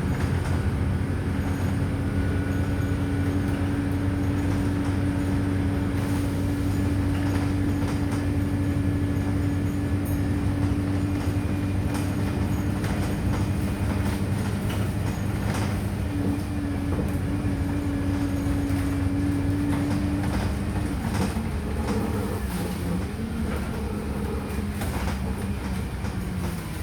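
Wright StreetLite DF bus heard from inside the cabin: a steady engine and drivetrain drone with occasional rattles from the body. About three-quarters of the way through, the drone wavers and drops in pitch as the bus slows.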